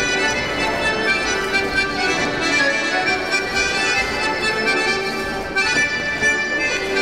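Polish folk dance music of the Kielce region playing steadily, with several pitched melody lines sounding together.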